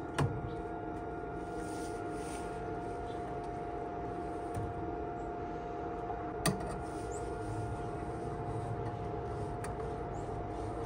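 Steady machine hum with a held tone, with two sharp metallic clicks, one just after the start and one a little past the middle, as wire and steel are handled.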